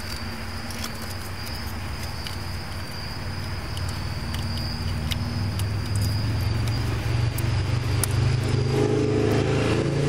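Subaru Outback's EJ25D flat-four engine running, heard close up in the engine bay, growing louder about six seconds in. The uploader calls it the classic piston slap, a knocking that rises and falls with the revs, in an engine with 243,000 miles on it.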